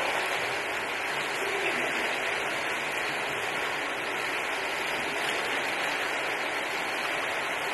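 Swimming-pool ambience: a steady rush of water stirred by a group of people moving through it with foam noodles.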